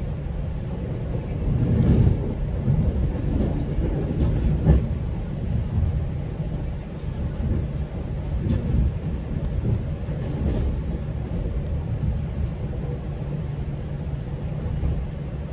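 GO Transit commuter train running along the track: a steady low rumble with heavier knocks about two seconds in and again near five seconds in, and scattered light clicks from the wheels.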